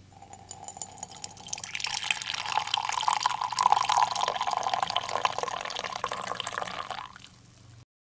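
Coffee poured in a stream into a ceramic mug, splashing and filling; the pour swells after about a second and a half and stops about seven seconds in. A faint low hum runs underneath.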